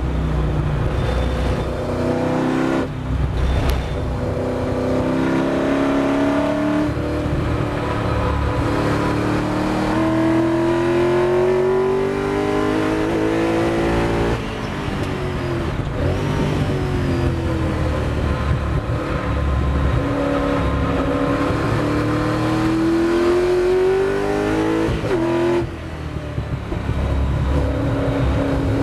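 Ford GT40's V8 heard from inside the cockpit at racing speed. Its pitch climbs steadily under full throttle in long pulls, with a brief gap for an upshift a few seconds in. About halfway through the throttle comes off and the pitch drops through downshifts, then climbs again before another lift and downshift near the end.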